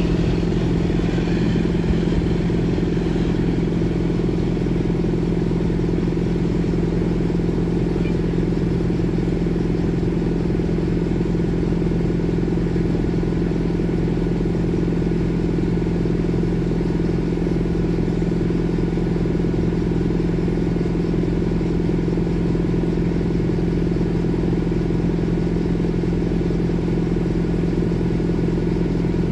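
Heavy machinery running at a steady pace: a constant low drone with a strong hum, as the container gantry crane works overhead.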